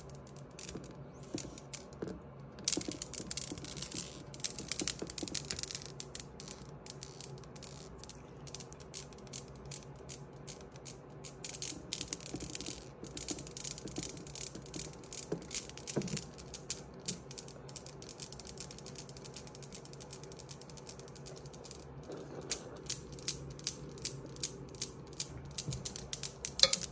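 Newton's cradle: its steel balls clicking against each other in a fast run of light metallic clicks, starting about three seconds in, thinning out in the middle and growing sharper again near the end.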